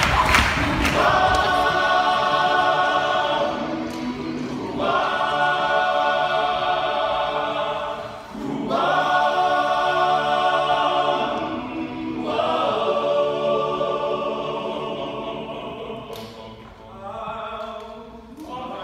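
Men's a cappella group singing a series of held chords in close harmony, each phrase lasting a few seconds with a short break between, softer near the end.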